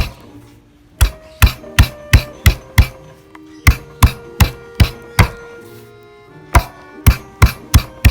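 Knife chopping on a cutting board: sharp strokes about three a second, in three short runs with brief pauses between them, over quiet background music.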